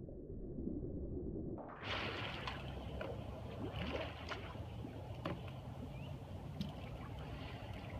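Swimming-pool water sloshing and lapping after a splash, with scattered sharp ticks. The sound is muffled at first and opens up clearly about two seconds in.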